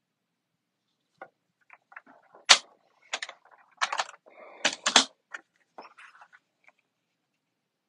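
Clatter of a paper trimmer being moved aside on a tabletop and cardstock being handled: a string of knocks, clicks and scrapes, the loudest about two and a half and five seconds in.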